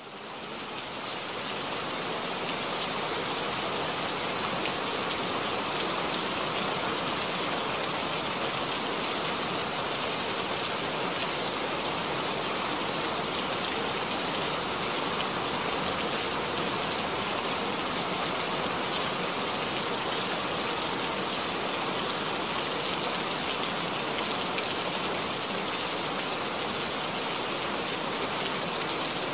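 Steady rain, an even dense hiss of rainfall with no breaks, fading in over the first couple of seconds.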